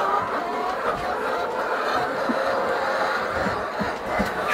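A flock of laying hens clucking, with many overlapping calls throughout.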